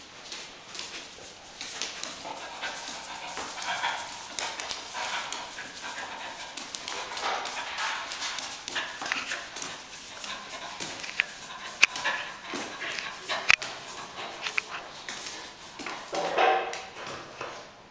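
Small terrier panting and scuffling as it grips and thrusts against a plush hippo toy, fur rustling on the plush, with sharp clicks of claws on the wooden floor and a louder burst near the end.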